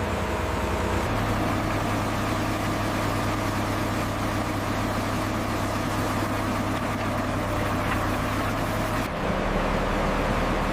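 Heavy machinery running: a steady engine-like drone with a low hum under a dense hiss, its pitch and character changing abruptly about a second in and again near the end.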